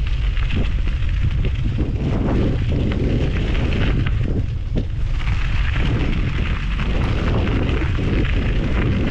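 Mountain bike tyres rolling over gravel, crunching and crackling, under a loud steady low rumble. The crunching gets harsher about halfway through as the bike moves onto looser gravel.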